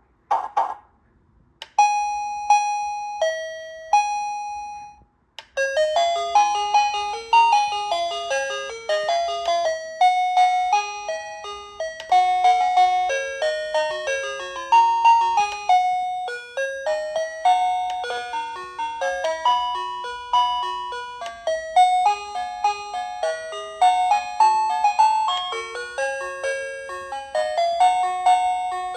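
Plug-in wireless doorbell chime unit playing its electronic tones: three slow ringing bell notes, high, lower, high. From about five seconds in it plays a long, quick electronic melody of many notes.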